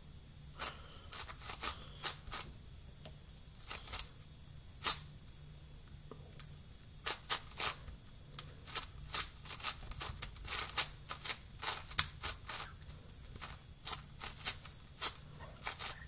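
A plastic 7x7 Rubik's cube turned by hand during a solve: quick, irregular clicks and clacks of the layers snapping round, scattered at first, then in fast runs from about seven seconds in. A faint constant high ring sits underneath.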